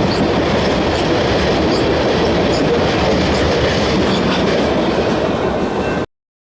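Long mixed freight train's cars rolling past at track speed: a steady rumble of steel wheels on the rails with faint clicks. The sound cuts off suddenly about six seconds in.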